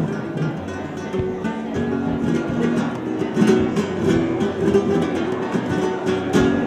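Spanish guitar music: a plucked melody with occasional strummed chords.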